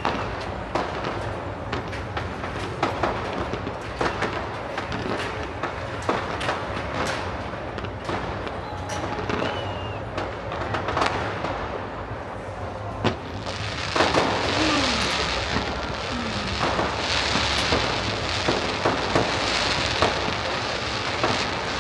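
Fireworks display: a string of separate bangs, then, a little after halfway, a dense crackling hiss of many small bursts at once, like rain.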